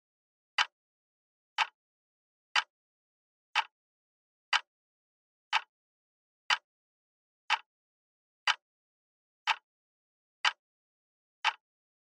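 Clock ticking sound effect for a countdown timer: one short, sharp tick each second, with silence between ticks.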